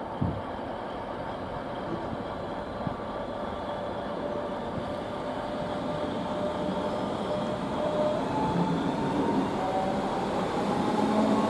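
Bodensee-Oberschwaben-Bahn regional train running on the rails, growing gradually louder, with faint whining tones that slowly rise in pitch in the second half.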